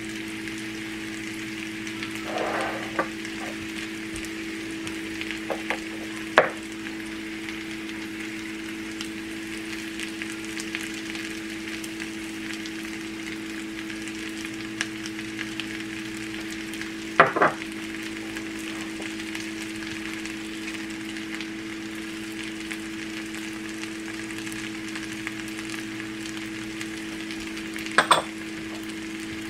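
Halved baby potatoes sizzling steadily as they fry in a skillet, over a low steady hum. A few sharp taps and clatters break in now and then.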